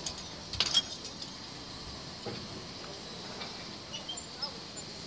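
A short jingle of sharp metallic clinks about a second in, then a quiet background with a few faint, high, short chirps.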